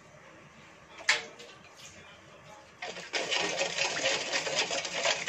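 A metal spoon stirring coconut milk in a stainless steel wok, scraping rapidly and steadily against the pan from about three seconds in. A single sharp clink comes about a second in.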